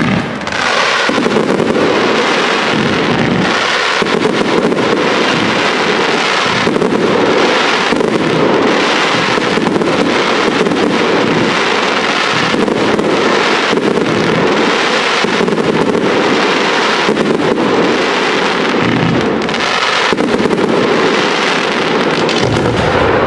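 A fireworks display going off in a dense barrage of bangs and crackling, one burst running into the next.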